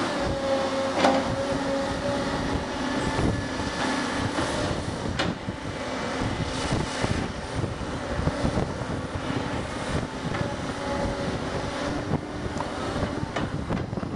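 A steady engine drone with a faint hum, under gusts of wind on the microphone and a few scattered knocks.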